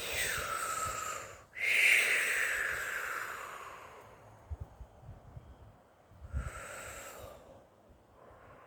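A woman blowing out forceful, hissing breaths as part of a light-language vocal activation. Each breath sinks in pitch as it goes. There are two long ones, the second the loudest and fading slowly, and a short one near the end, with a few soft low thumps in between.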